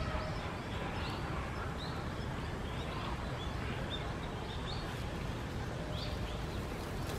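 Small birds chirping repeatedly, short high chirps over a steady low outdoor rumble.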